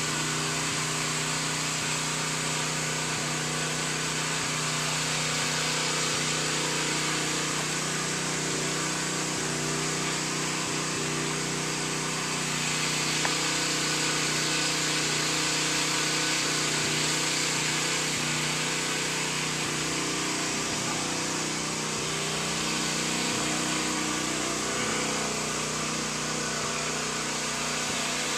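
Pressure washer running steadily: a constant engine-like hum with the hiss of the water spray washing vinyl siding.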